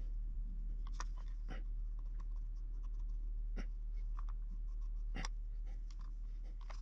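Scattered small clicks and light scrapes of a metal sculpting tool and fingers working modelling clay on a slim rifle form, over a steady low electrical hum.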